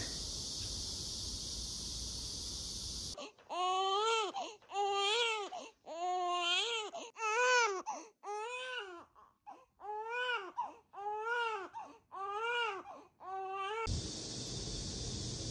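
Newborn baby crying: about ten short wails in a row, each rising and then falling in pitch. They begin a few seconds in, after a steady high hiss, and stop near the end when the hiss returns.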